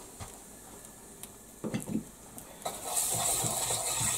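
Chicken drippings, flour sediment and seasoning sizzling in a frying pan as they are stirred with a wooden spatula, the start of a pan gravy. A few soft knocks come about halfway through, then a steady sizzle sets in near the three-second mark.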